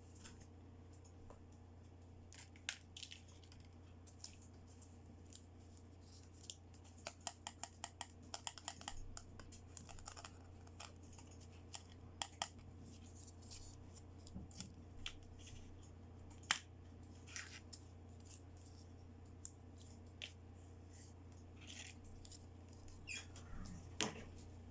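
Light clicks, taps and crinkles of small plastic toy accessories and their packaging being handled, with a quick run of clicks about a third of the way in, over a faint steady hum.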